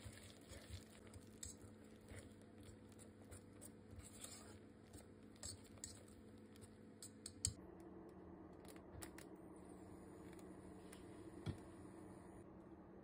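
Faint scraping and ticking of a wire whisk against a stainless steel bowl, mixing thick batter. After about seven and a half seconds this gives way to a faint, steady low hum with a few isolated clicks.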